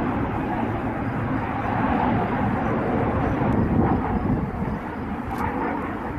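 IAR 330 Puma military helicopter flying past: steady rotor and twin Turbomeca Turmo turboshaft noise, with a fine low pulsing from the blades.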